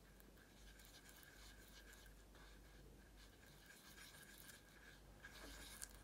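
Near silence: faint scraping of a paintbrush mixing paint on a plastic palette, a little louder near the end, over a faint low hum.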